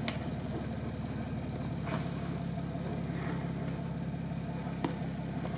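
Jeep Wrangler's engine idling, a steady low hum, with a few faint clicks.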